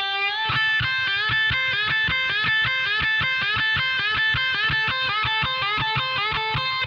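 Electric guitar playing a repeating blues lick in D: a whole-step bend at the 12th fret of the G string, then the 10th and 13th frets on the B string, over and over at a quick, even pace. It opens on a held, bent note with vibrato and stops just before the end.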